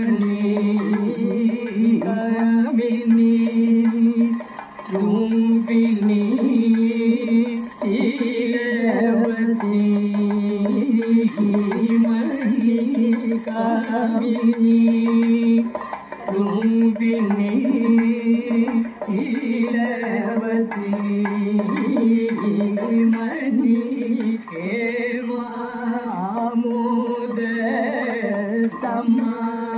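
Male vocalists singing a Kathakali padam in a Carnatic-style melody, with long held and ornamented notes over light percussion accompaniment.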